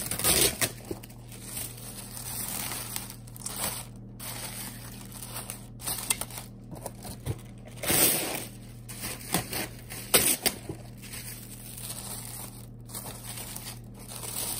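Plastic cling wrap crinkling and rustling as it is pulled out and stretched over a stainless steel mixing bowl, with a few louder crackles along the way.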